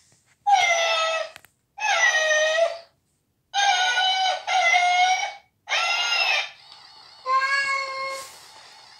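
Electronic plush toy cat playing its recorded meows: six long meows one after another, each cutting off abruptly, with a faint steady hum under the last one.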